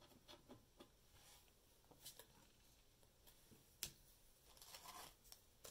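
Near silence with faint scattered clicks and light rustles of Pokémon trading cards being handled, and one sharper tap about four seconds in.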